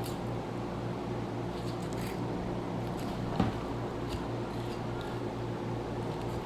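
Knife slicing through the skin of a raw whole chicken beside the thigh, with a few faint clicks and taps, the clearest about three and a half seconds in, over a steady low hum.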